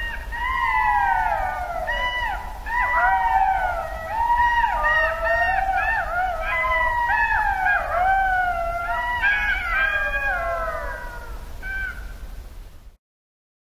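A chorus of golden jackals howling: many short wailing calls overlapping one another, most of them falling in pitch. It cuts off abruptly near the end.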